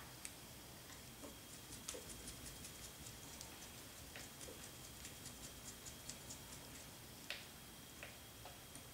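Faint rapid ticking, several small ticks a second for a few seconds, then a few sharper single clicks: a hex driver turning small screws into a carbon-fibre model helicopter frame.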